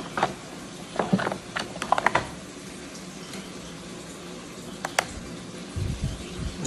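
Handling noise of a plastic digital kitchen scale being slid and set down on a wooden table among metal tools: a cluster of clicks and light knocks about a second in, a single sharp click near five seconds, and low bumps near the end.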